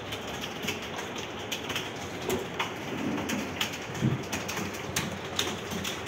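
Clatter of several computer keyboards being typed on at once, an irregular patter of key clicks several times a second, with a brief low sound about four seconds in.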